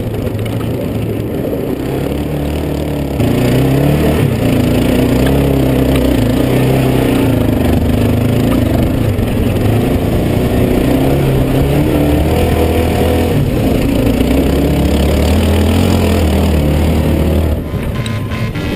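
Yamaha Raptor 700 ATV's single-cylinder engine running under throttle as the quad rides over sand, its pitch rising and falling with the throttle and louder from about three seconds in. Near the end it gives way to background music.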